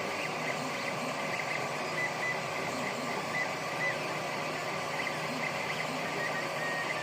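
Ender 3 3D printer running: a steady fan hiss and hum, with the stepper motors singing short, shifting whines as the print head moves back and forth.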